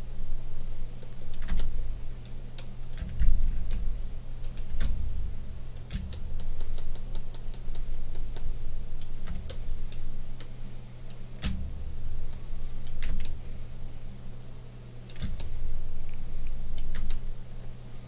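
Irregular light clicks and taps from computer keyboard and mouse use, over a steady low hum, with low rumbling thuds now and then.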